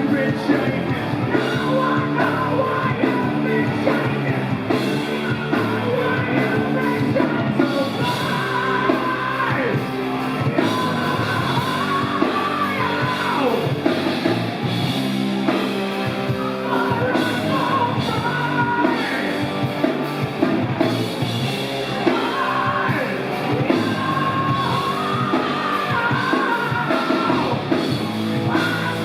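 Live rock band playing loud, heavy grunge with drums, bass and distorted electric guitar, and high wailing lines that slide up and down in pitch.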